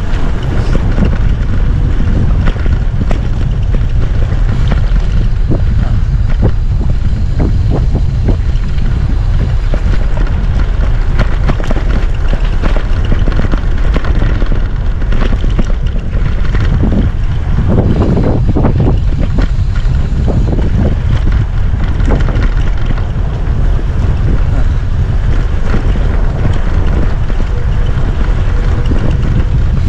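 Wind buffeting the microphone of a camera riding on a moving bicycle: a loud, steady low rumble, with a few short rattles around the middle.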